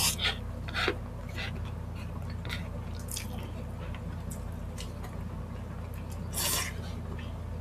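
Close-up wet eating sounds: scattered lip smacks and chewing clicks from people eating saucy chicken feet and rice by hand, with a longer sucking sound about six and a half seconds in, over a steady low hum.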